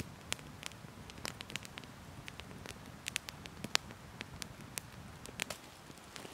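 Wood campfire crackling, with irregular sharp pops over a low steady rumble.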